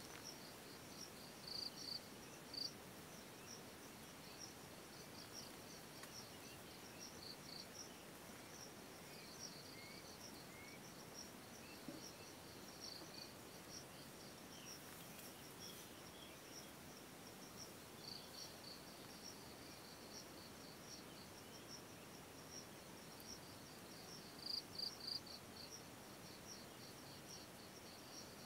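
Insects chirping in a rapid, high-pitched pulsing trill, louder in short spells near the start and again near the end. A few faint short chirps come in around the middle.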